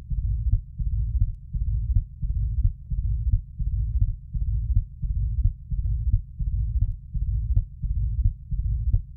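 Auscultation recording of a heart with aortic regurgitation: regular heartbeats, each with a murmur starting right after the second heart sound and loudest at its start.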